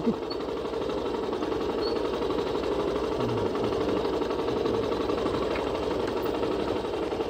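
Motorcycle engine running steadily at low speed on a rough dirt track, an even, fast chugging with no change in pace.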